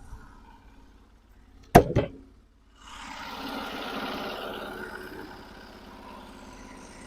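A sawmill's engine runs steadily underneath. About two seconds in comes a loud double clunk, like heavy wood or metal knocking. After it, a rushing mechanical noise swells for a couple of seconds and fades.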